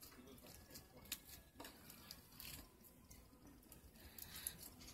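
Faint, irregular clicking and crackling of foam-bead slime as fingers poke and squeeze it.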